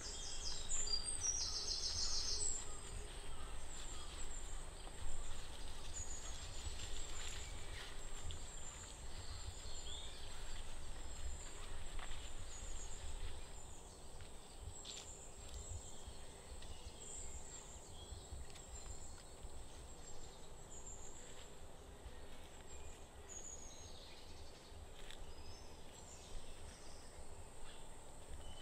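Tropical forest ambience: scattered short bird chirps and calls over a steady high whine and a low rumble, with a quick high trill about a second in. The whole bed gets quieter about halfway through.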